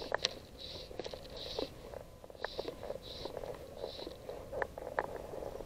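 Fly line being stripped in by hand through the rod guides during a retrieve: a run of short soft hisses, about one a second, that stops near the end. Light clicks and rustles of rod and line handling come between the hisses.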